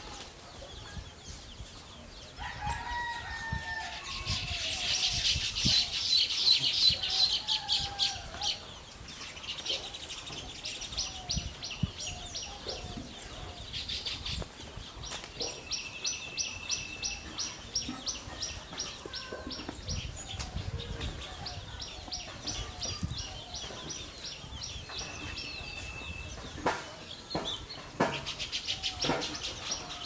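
Baya weavers chattering at their nests: rapid trains of short, high clicking notes, loudest a few seconds in, with a thin held note twice in the middle of the stretch.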